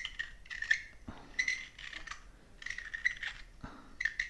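Adjustable metal pipe reamer turned by hand inside a briar pipe bowl, its blades scraping the carbon cake off the bowl wall in a run of short scraping strokes, about two a second.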